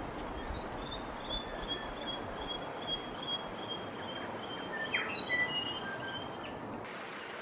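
A small bird calling in a run of short, high chirps, several a second, with a brief falling note partway through, over a steady rush of river water. The background changes abruptly near the end.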